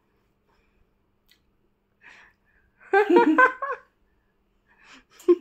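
Giggling laughter in two short bursts, the first and louder about three seconds in, the second starting near the end.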